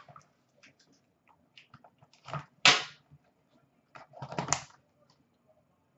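Hockey card pack being handled and opened: a few short rustles and crinkles of wrapper and card stock, the loudest about two and a half seconds in and again about four and a half seconds in.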